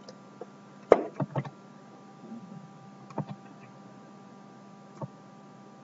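A few scattered sharp clicks and knocks, the loudest about a second in and the last near the end, over a faint steady electrical hum.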